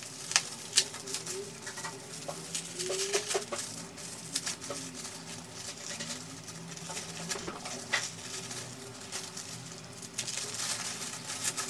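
Wrapping paper and sticky tape being pulled and torn open by hand: irregular crinkles and sharp little snaps and clicks.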